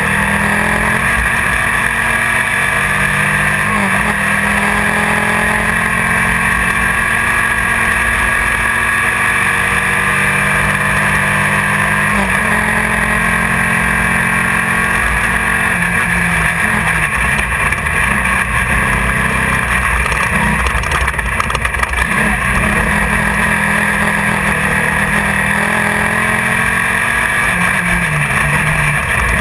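Class 1600 off-road race buggy's air-cooled Volkswagen flat-four engine pulling hard under race load, its note climbing steadily and breaking at gear shifts every several seconds. A constant noisy rush of wind and driving noise sits underneath, heard from inside the car.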